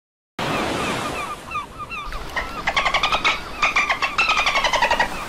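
Dolphin chatter sound effect: a run of short falling chirps, then rapid click trains with a squealing whistle that slides down in pitch, cutting off suddenly.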